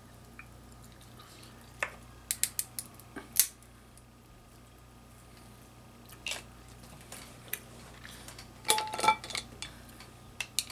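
Hard seafood shells and dishware clicking and clacking while mussels and crab legs are eaten. There is a quick run of sharp clicks about two to three and a half seconds in, then a few single clicks, and a denser clatter with a brief ring near the end.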